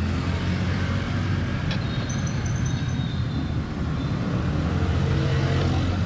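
Roadside traffic noise: a steady low rumble of passing vehicles.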